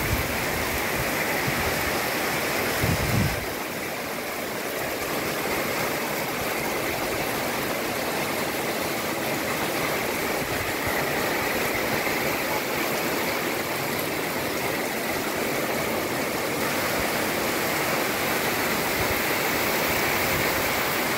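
Heavy rain pouring down, a steady hiss with no let-up, with a brief low bump about three seconds in.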